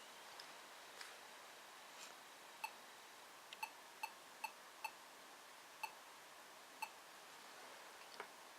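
ThinkPad T61 laptop sounding a POST beep error code: about eight short, identical beeps in uneven groups, the memory error code it gives with a suspect RAM stick installed.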